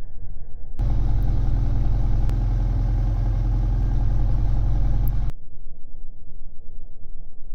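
Classic Mini MPI engine idling steadily. It starts as a muffled low rumble, opens out to the full engine sound about a second in, and turns muffled again about two seconds before the end.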